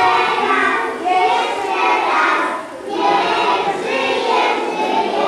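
A group of children singing together, with no accompaniment to be heard.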